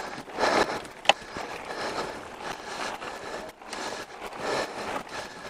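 Mountain bike rolling along a dirt trail: steady tyre and rattle noise with scattered small knocks, and one sharp clack about a second in.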